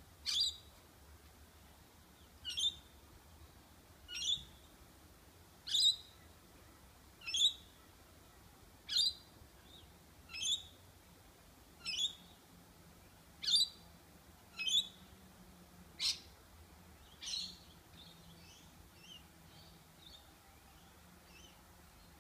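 A bird calling: a short, high, sharp note repeated about every one and a half seconds, a dozen times, followed by a few fainter chirps near the end.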